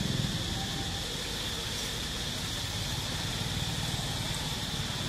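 Steady outdoor background noise with no distinct event: a constant high-pitched drone over a low, even rumble.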